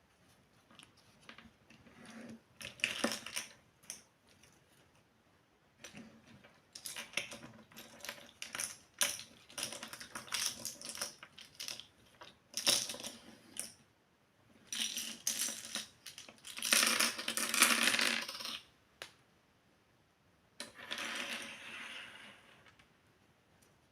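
Small toy kitchen pieces being handled, miniature steel and plastic parts: a run of small clicks, taps and metallic clinks, with two longer stretches of continuous handling noise in the second half.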